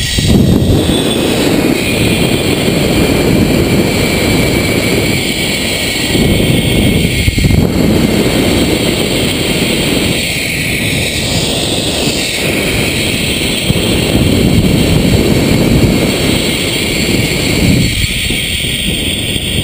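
Wind rushing over the microphone of a rider speeding down a zipline, surging and easing every few seconds, with a faint steady whir from the trolley's pulleys running along the steel cable.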